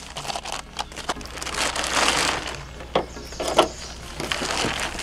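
Nylon tent fabric rustling and swishing while a truck bed tent is handled and fitted, with scattered clicks and knocks from its poles and buckles, two of them sharper about three seconds in.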